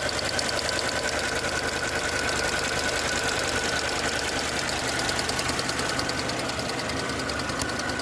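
Mercedes B-Class petrol engine idling, with its EVAP canister purge valve ticking rapidly and evenly while it is activated, over a steady whine. The ticking is the valve working normally, not a fault.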